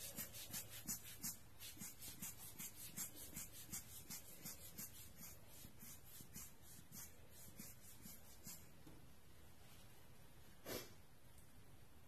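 Giottos Rocket rubber-bulb air blower squeezed over and over, giving faint, rapid puffs of air at about three a second that stop after about eight seconds. A single short knock near the end.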